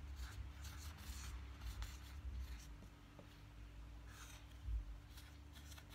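Faint scratching strokes of a marker pen writing on a small whiteboard, in short irregular bursts.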